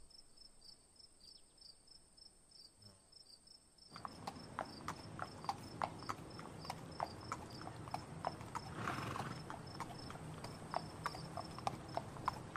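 Horse hooves clip-clopping in a steady rhythm, starting about four seconds in, over faint, evenly repeated cricket chirping. There is a short breathy noise about nine seconds in.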